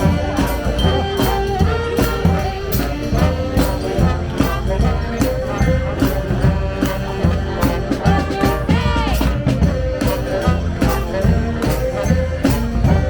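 Brass street band music with drums, playing with a steady beat.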